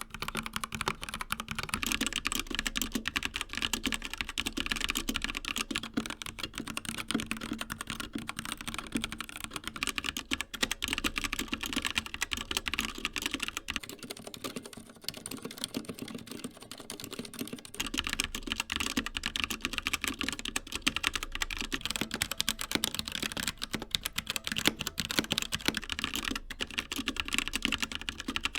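Continuous fast typing on a series of mechanical keyboards, the switches changing every eight seconds or so. First an Akko 3068B Plus with Jelly Black linear switches, then an Endorfy Thock Compact with Kailh Box Black switches. About 14 seconds in it changes to a CZC Halfling with Cherry MX Silent Red switches, with softer, damped keystrokes. It ends on a Niceboy Oryx K700X Pro with Gateron Brown tactile switches.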